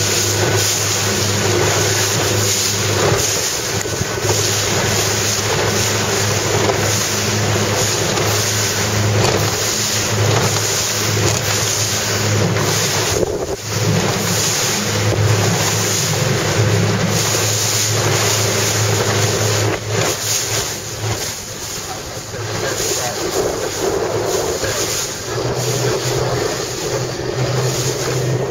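Wind buffeting the microphone over the rush of choppy water, with the steady low hum of a motorboat engine underneath. The engine hum drops away about twenty seconds in and comes back near the end.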